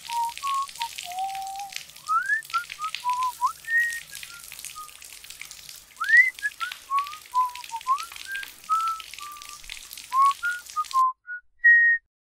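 A person whistling a wandering tune, single notes sliding up and down, over the steady hiss of a running shower. The water cuts off about a second before the end, and the whistling carries on for two more notes.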